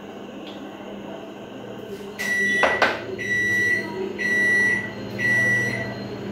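A kitchen appliance's electronic timer beeping four times, about once a second, each beep a short high tone. A sharp click comes just after the first beep.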